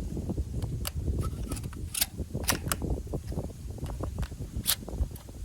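12-gauge shotshells being pushed by thumb into the tubes of a Garaysar TR19S's four-tube magazine, giving about five sharp clicks as the shells are caught by the tube's retaining fingers, under a low rumble.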